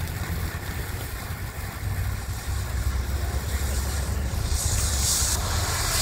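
Early-1980s Red Lantern Twice Sparklers ground fountain firework spraying sparks with a steady hiss, which grows louder and brighter about four and a half seconds in, over a low rumble.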